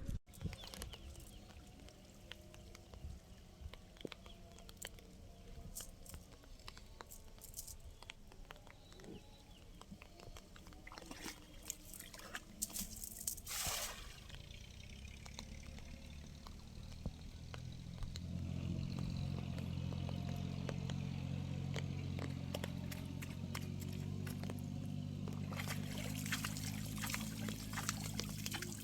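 Water sloshing and trickling, with many scattered small clicks and a brief swish about halfway through. From about two-thirds of the way in, a steady low hum sets in and stays louder than the water.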